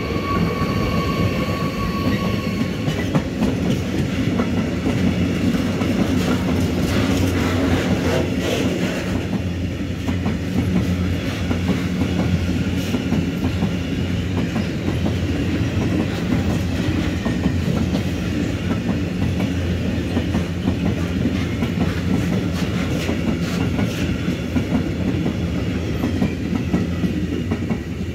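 Freight train of tank wagons passing close by, hauled by a Deutsche Bahn electric locomotive. A steady whine from the locomotive carries through the first few seconds. Then comes the wagons' rumble with the clickety-clack of wheels over rail joints and points, dropping away at the end as the last wagon passes.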